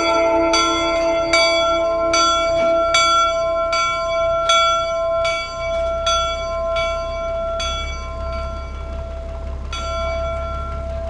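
Locomotive bell of the Union Pacific No. 119 steam engine replica being rung. The strokes come about every 0.8 s and each one rings on, with a pause of about two seconds near the end before they resume. A low steady hum comes in about halfway.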